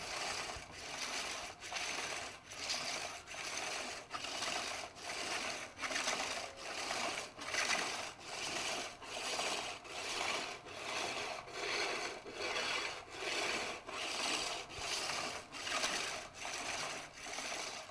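Rough stone grinding against a lacquer bowl turning on a hand-powered wooden lathe: a rhythmic rasping, about four strokes every three seconds. The cured coat of lacquer and cattle-bone-ash plaster is being smoothed.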